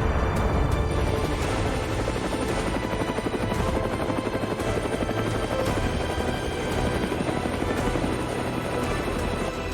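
A fast, steady mechanical chopping rumble that keeps on without a break, under background music.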